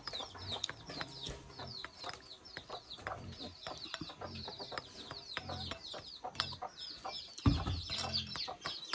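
A hen pecking rice out of a bowl held in the hand: quick clicks of its beak on the bowl, with soft low clucks. Quick high chirps keep up behind, and there is a louder low bump near the end.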